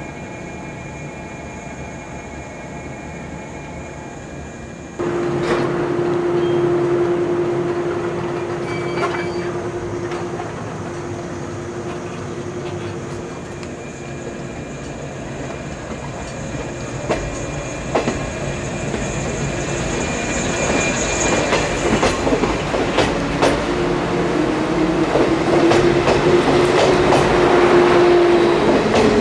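JR 183 series electric train pulling out of the platform and accelerating past: a steady tone starts abruptly about five seconds in, then the wheels clatter over rail joints and a motor whine rises slowly, loudest near the end as the cars pass.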